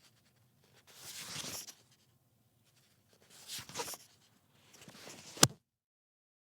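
Pages of a paper book being turned one at a time, three rustling page turns; the last ends in a sharp snap.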